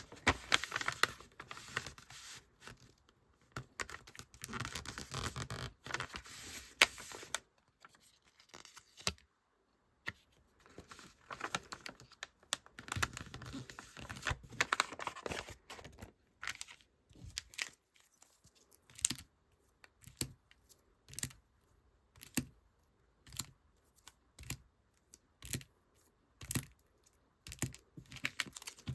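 Hand packing of die-cut stickers: irregular crinkling and rustling of packaging, with scattered light taps and clicks and short quiet gaps between handlings.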